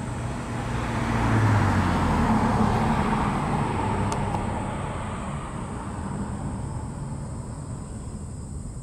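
A motor vehicle passing by: its noise, with a low hum under it, swells about a second in, is loudest for a couple of seconds, then fades away.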